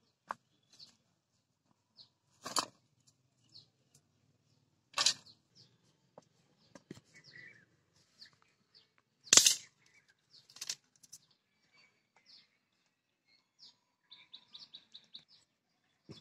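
A few loud, sharp knocks and clatters as a cement stove, an iron wok and dry bamboo sticks are handled, the loudest about nine seconds in. Short, high bird chirps come in between, with a quick run of them near the end.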